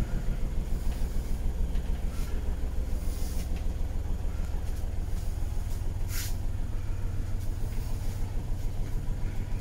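The boat's engine running at a steady idle, heard inside the cabin as a low throb pulsing about five times a second.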